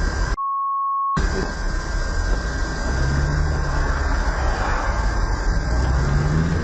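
Car engine and road noise heard from inside a moving car through a dashcam microphone, with a faint steady high tone underneath. About half a second in, the sound is replaced for about a second by a censor bleep, a single pure beep. Later the engine note rises twice, as if the car is accelerating.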